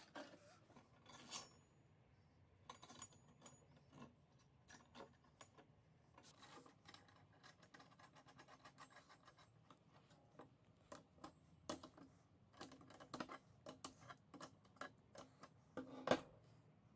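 Faint, irregular metallic clicks and clinks of small steel parts being handled as a coil spring, washer and hex nut go onto a threaded steel rod and the nut is run down the thread. A sharper knock comes about a second before the end.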